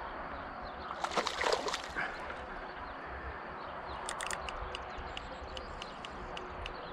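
A splash in the water of the lake about a second in, followed by a run of faint, evenly spaced ticks.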